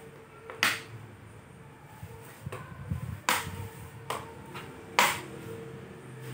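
Sharp clicks and taps of hard plastic as a laptop's case is handled during reassembly. Four loud clicks stand out at uneven intervals, with fainter taps between them.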